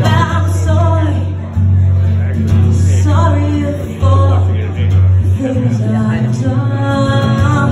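A woman singing a song to her own acoustic guitar, in phrases with short breaks between them, over a steady low guitar boom.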